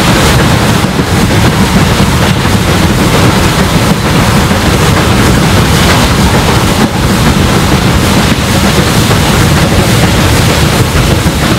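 SR Merchant Navy class three-cylinder steam locomotive 35028 'Clan Line' working hard up a 1-in-60 gradient, heard from the open front window of the first coach with the tender leading: a loud, continuous rush of exhaust and running noise, with wind buffeting the microphone.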